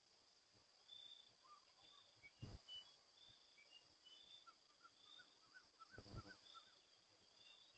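Faint insects calling: a steady high drone with a short high chirp about once a second. Soft bird-like chirps come through in the middle, and there are two low thumps, one about two and a half seconds in and one about six seconds in.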